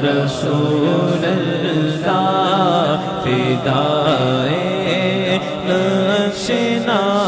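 A man singing a naat, an Urdu-Punjabi devotional song to the Prophet, into a microphone with an echo effect on his voice. He draws out long, wavering held notes over a steady low drone.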